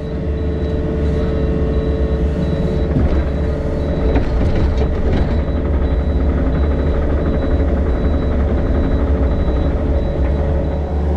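Yanmar excavator working: a steady diesel engine drone with a constant hydraulic whine, and a few metallic clanks of the bucket between about three and five seconds in.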